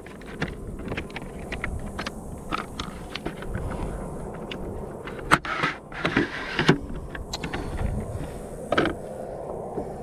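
Clicks, knocks and scrapes of a plastic fish-measuring board and landing net being handled against a plastic kayak, with one sharper knock about five seconds in.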